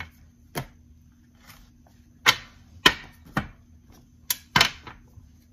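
Tarot card decks being handled and set down on a glass-topped table: about six sharp taps and knocks, irregularly spaced, with the loudest clustered in the middle and latter part.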